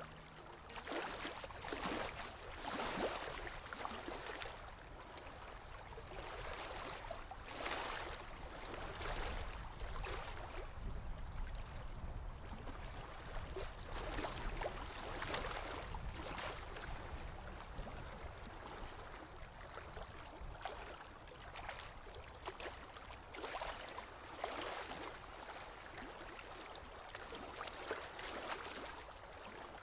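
Coloring strokes on Bristol paper: irregular scratchy rubbing, swelling with each stroke every second or two.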